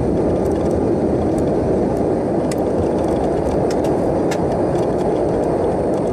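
Steady loud noise of an Antonov An-12's four turboprop engines as the aircraft rolls along the runway, with a few faint scattered clicks.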